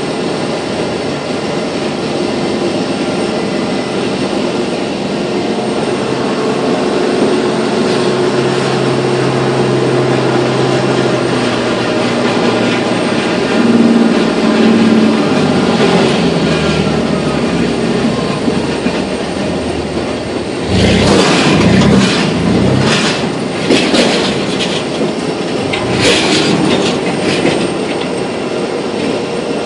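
Airbus A320 jet engines whining steadily on the ramp during pushback. Partway through, a baggage tug's engine and its train of carts rattle past. Loud irregular clatters and thumps follow in the last third.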